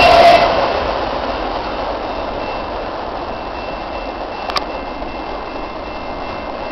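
Freight train rolling past: the loud clatter of its last car, an autorack, cuts off sharply within the first half second, and the rolling noise of the train fades into a steady, distant rush. A single sharp click about four and a half seconds in.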